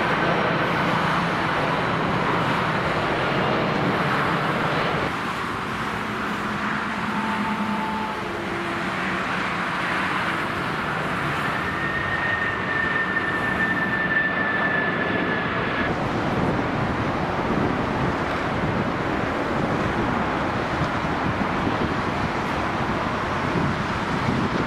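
Jet engines of low-flying cargo airliners on final approach, first a Boeing 747 and then an MD-11, over the steady rush of motorway traffic, with a high engine whine for a few seconds near the middle. In the later part, a broad, even roar as the MD-11 lands on the runway.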